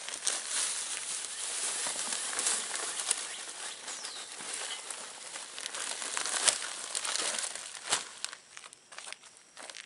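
A plastic bag of topsoil crinkling and rustling as it is tipped, with the soil pouring and sliding into a plastic tote box and a few sharp taps. It dies away about eight seconds in.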